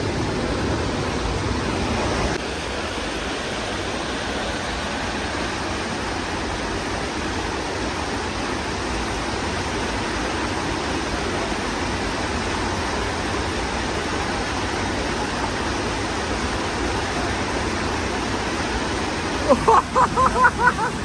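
River water rushing steadily. A person's voice calls out loudly in a few quick bursts near the end.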